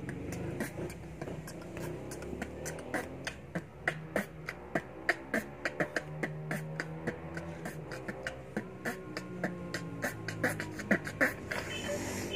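A boy beatboxing into his cupped hands: quick sharp clicks and snare-like hits, several a second, over a low held tone that steps up and down in pitch.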